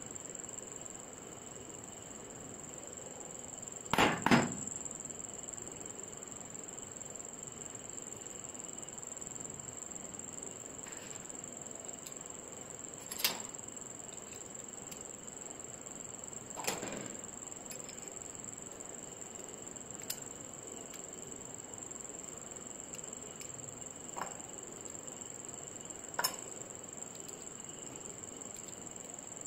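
Sharp metallic clacks from a hand-operated, lever-type animal hair clipper being handled: a cluster of clacks about four seconds in, then single clicks every few seconds. A steady high-pitched insect chirr, typical of crickets, runs underneath.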